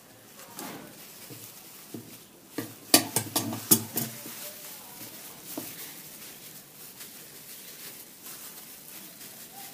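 Dry leftover roti being cut and handled on a stone worktop with gloved hands: rustling of crisp bread and plastic gloves, with a quick run of sharp clicks and knocks about three seconds in.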